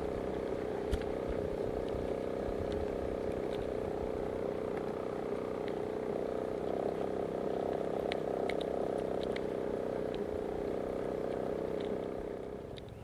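A small engine running steadily, with a few light clicks over it; the engine sound drops away near the end.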